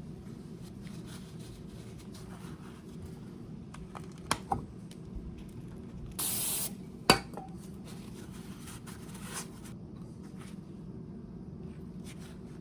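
Brake-job work sounds over a steady low hum: a couple of light metal clinks, a short hiss like an aerosol spray burst, then one sharp metallic clank that rings briefly.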